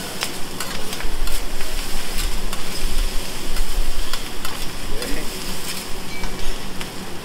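Fried rice sizzling on a hot steel hibachi griddle while a metal spatula scrapes and taps against the plate in quick irregular clicks.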